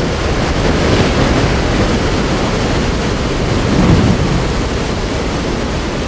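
Steady rush of a heavy monsoon rainstorm with wind, and a low rumble swelling about four seconds in.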